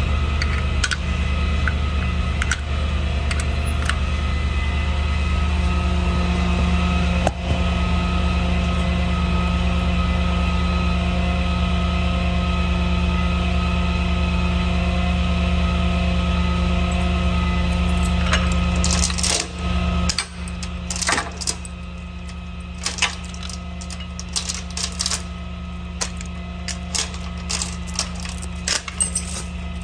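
Tow truck's engine running with a steady hum. About two-thirds of the way through it drops in level, and scattered metallic clinks and clanks follow.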